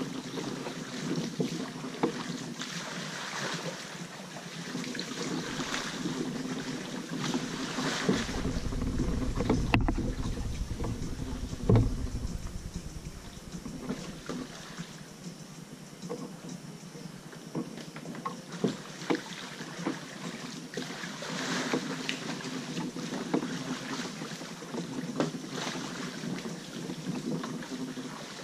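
Kayak being paddled: water splashing with scattered small knocks and drips from the paddle strokes. Wind rumbles on the microphone from about eight to thirteen seconds in.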